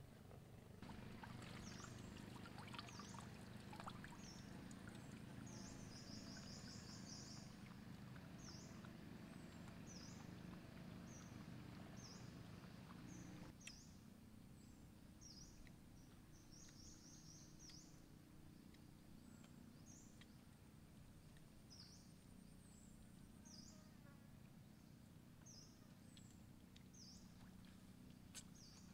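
Faint wildlife ambience: short, high chirps recurring about every second, some in quick little runs, over a thin steady high buzz that comes and goes. The background hiss drops about halfway through.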